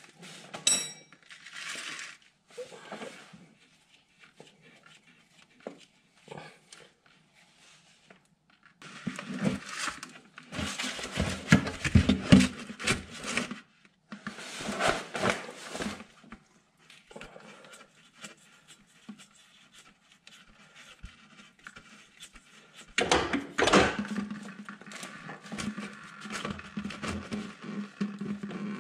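A few light metal clinks of a wrench on the hydraulic pump fittings, then hydraulic fluid draining from a loosened pump fitting into a plastic jug held beneath it, in two longer stretches.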